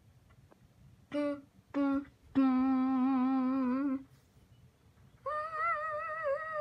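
Voiced humming or whining sounds: two short notes, then a long, steady low one, then after a pause a higher, wavering one.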